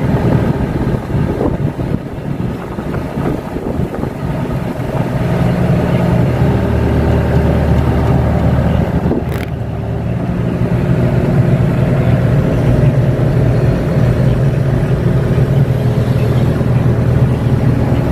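KATO tracked excavator's diesel engine running under working load, heard from inside the cab, swelling about five seconds in and again after ten seconds as the arm and swing move.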